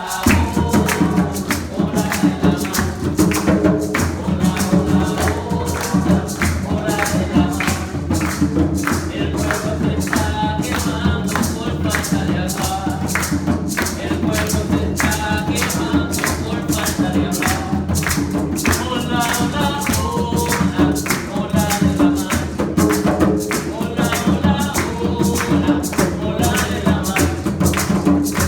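Music with a steady, even percussion beat and singing.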